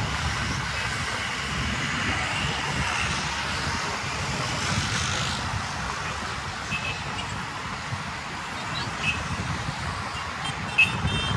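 Steady road traffic noise: cars passing on a busy road in a constant wash of engine and tyre sound. A brief sharp high sound comes near the end.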